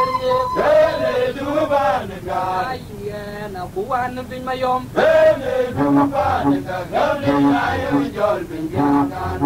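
Men's voices singing a chant-like song with long held, wavering notes. From about six seconds in, a low note pulses repeatedly underneath.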